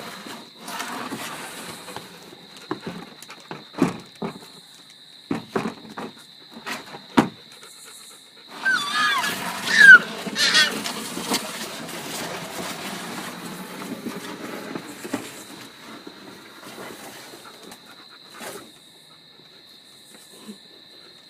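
A toddler making animal-like sound effects with his voice: a few short knocks and noises, then a loud burst of high, sliding squeals about nine to eleven seconds in.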